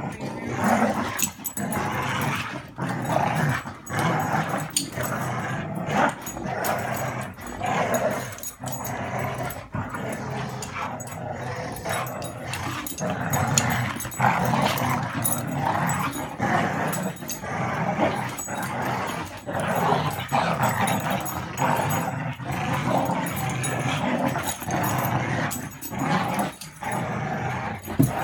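Two dogs, a terrier mix and a pit bull, growling continuously in play as they tug and shake a rope toy between them. The growling rises and falls in uneven surges, with sharper spikes here and there.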